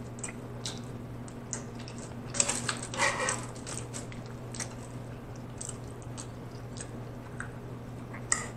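Close-miked mouth sounds of a person chewing food, with small wet clicks and smacks scattered through and a slightly louder patch about three seconds in, over a steady low hum. A metal fork scoops shell macaroni and cheese.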